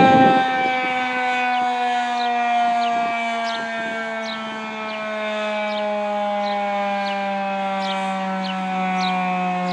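Federal Signal 2001-130 outdoor warning siren winding down, its tone falling slowly and steadily in pitch.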